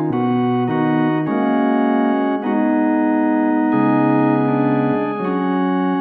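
Sampleson CollaB3 virtual tonewheel organ, a Hammond B3 emulation, playing a slow run of held chords that change every second or so.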